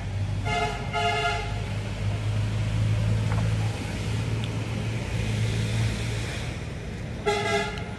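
A vehicle horn honks twice in quick succession about a second in and once more near the end, over the steady low drone of a motor vehicle's engine.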